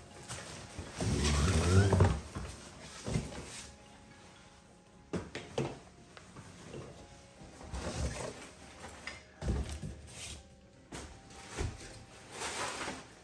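Play yard pieces pulled out of a cardboard shipping box and set down: cardboard and fabric rubbing, rustling and a few dull knocks. The loudest is a drawn-out rub between one and two seconds in.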